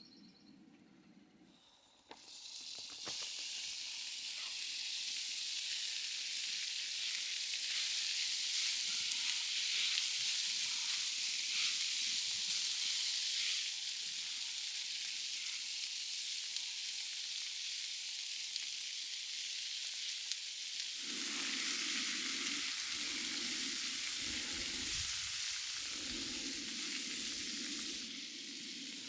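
Thin strips of ribeye sizzling on a hot cast iron skottle, the sizzle starting suddenly about two seconds in as the food hits the pan and then holding steady. A low steady hum joins about two-thirds of the way through.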